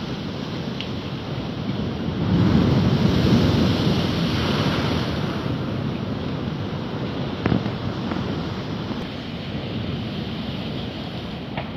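Wind gusting against the microphone over the steady wash of waves on a flooded seafront, with a stronger gust about two seconds in. A single short knock about halfway through.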